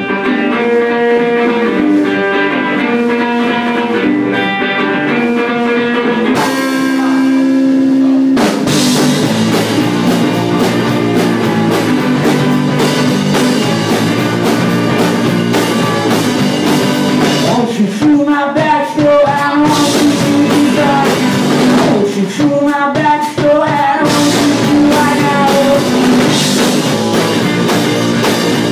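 Garage rock band playing live: a guitar picks out a melody alone, then drums and the full band come in about eight seconds in. A voice sings over the band for two stretches in the second half.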